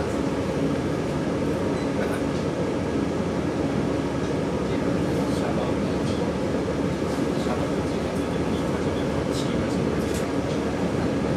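Steady running noise inside the passenger cabin of a JR 485-series electric train at speed: wheels rumbling on the rails, with a steady low hum.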